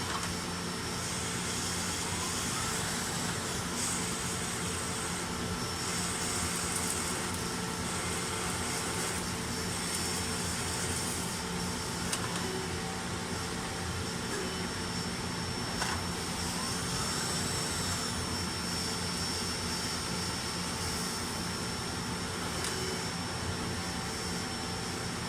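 Nakamura-Tome Super NTM3 CNC turning center running: a steady machine hum with a few constant whining tones, and high hissing that comes and goes every second or two.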